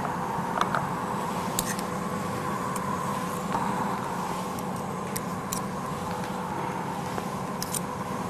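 Pot of clam broth at the boil on the stove, a steady hiss, with a few light clicks and clinks as spoonfuls of fish paste are dropped in.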